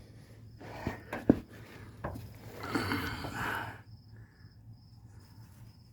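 Rustling handling noise with a sharp click, then faint insect chirping repeating about twice a second.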